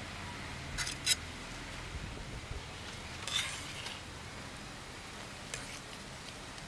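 Metal ladle clinking against a metal pan of simmering curry: two sharp clinks about a second in, a short cluster a little past the middle and a faint one near the end, over a steady low hiss.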